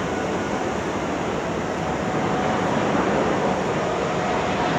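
The four Rolls-Royce Trent 970 turbofans of an Airbus A380-841 on final approach with landing gear down: a steady jet roar with a faint high whine, growing a little louder near the end as the airliner comes closer.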